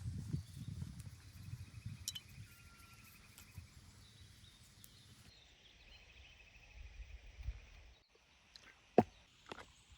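Faint outdoor background with an insect trilling in short pulsed runs. There is low rustling and handling noise in the first few seconds, and a single sharp click about nine seconds in, the loudest sound, followed by a few smaller clicks.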